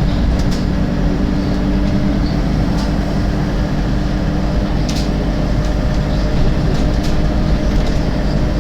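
An Alexander Dennis Enviro 300 bus on a MAN chassis running with a steady engine drone, and sharp clicks coming through it at irregular intervals, several in a few seconds.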